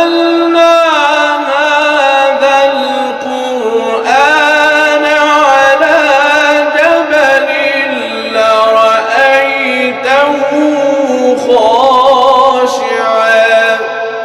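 A male reciter's solo voice chanting Quran in the melodic mujawwad style, holding long ornamented notes that waver and glide in pitch, with a few brief pauses for breath.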